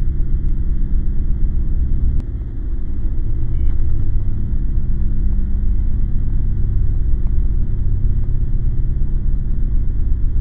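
A deep, steady low rumble with a faint steady hum in it, dipping briefly about two seconds in.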